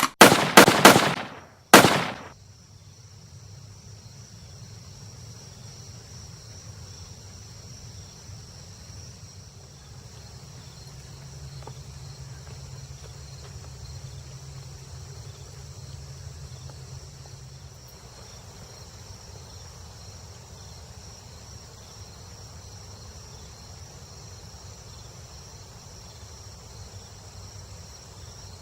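A few loud, sharp bangs that ring on in the first two seconds, then a steady chorus of insects chirping, like crickets, over a low rumble.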